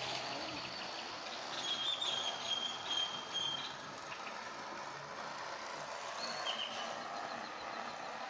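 Bicycle spokes striking a container fixed to the frame as the bike is ridden, a rapid clattering buzz made to imitate a motorbike; it is loudest from about one and a half to three and a half seconds in.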